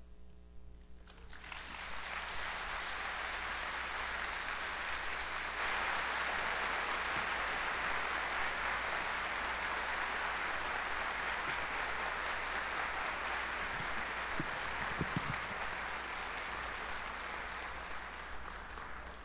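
Audience applauding. The clapping builds about a second in, is fullest from about five seconds in, and tapers off near the end.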